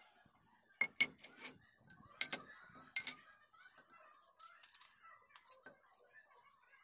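Iron pipes clinking and knocking against each other and the concrete floor as they are handled, in two short clusters of sharp metallic clinks, about a second in and just after two seconds in.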